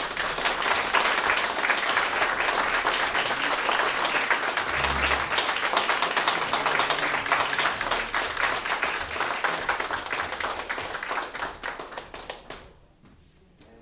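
Audience applauding in a hall, a dense patter of clapping that thins to a few scattered claps and stops about twelve seconds in.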